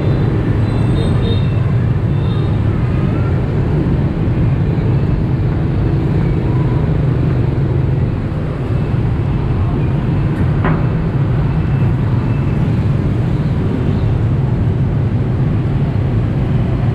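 Steady hum of city street traffic, motorbike and car engines passing close by, with one brief sharp click about ten seconds in.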